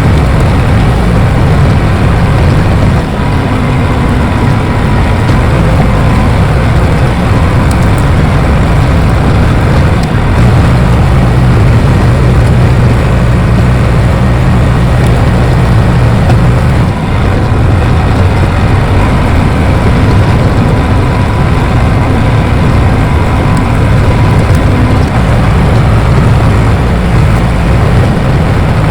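Bulldozer's diesel engine running loud and steady, its low drone growing stronger for a few seconds about a third of the way in and again near the end.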